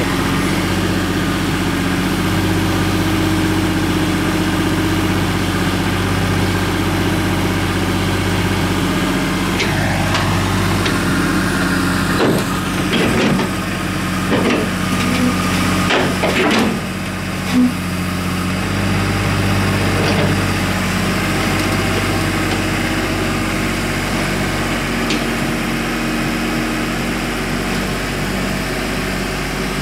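Komatsu PC50UU mini excavator's diesel engine running steadily as the machine works off a truck bed on its steel tracks and blade. About halfway through comes a run of sharp knocks and clanks, after which the engine's note drops slightly.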